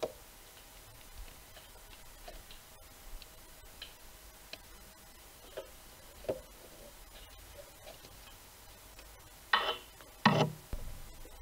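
Light, scattered clicks and taps of a screwdriver and plastic ignition-coil parts and clips being handled on an engine with the engine off, then two louder clunks of tools about nine and a half and ten seconds in.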